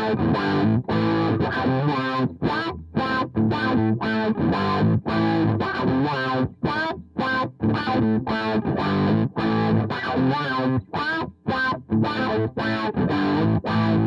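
Opening of a rock song: a distorted electric guitar plays a riff in short, choppy phrases broken by brief stops.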